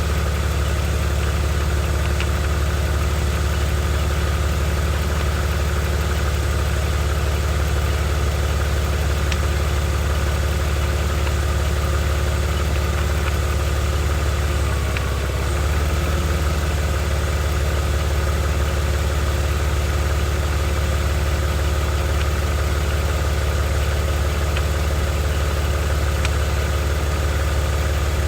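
BMW 330xi's inline-six engine idling steadily, with a brief dip in the sound about halfway through.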